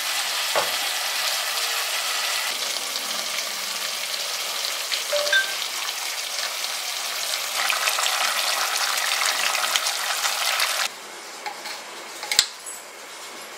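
Chicken masala frying and sizzling in a pot as it is stirred, a dense crackle that cuts off suddenly about eleven seconds in. Near the end, a single sharp click.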